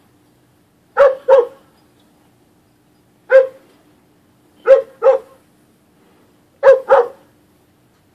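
A dog barking: seven short, loud barks, mostly in quick pairs, with pauses of a second or more between the groups.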